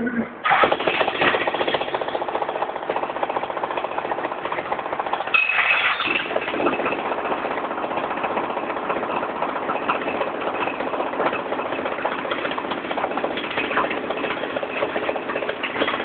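Jackhammer running in continuous rapid hammering, cutting in abruptly about half a second in, with a brief louder stretch around five seconds in.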